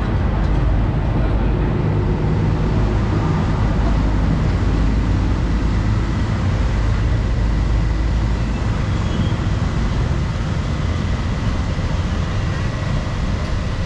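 Steady low rumble of street traffic, with a faint steady high tone above it.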